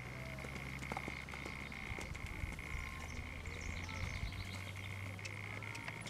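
A steady high-pitched trill, with a few faint hoof thuds from a horse cantering over a dirt arena.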